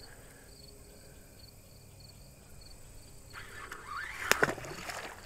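Cast of a baitcasting rod and reel about three seconds in: a short rush as the rod swings and the spool spins and pays out line, with one sharp click in the middle of it.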